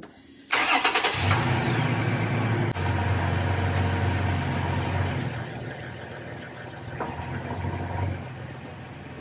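Pickup truck engine starting about half a second in and running fast at first. From about five seconds on it settles into a lower, quieter idle.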